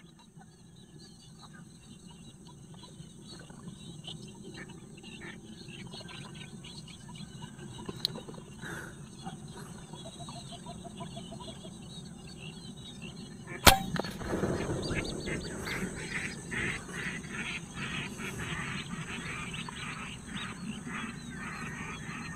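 Ducks calling softly, then about two-thirds of the way through a single sharp crack from a PCP air rifle shot, followed by louder, busier duck calls and commotion from the flock.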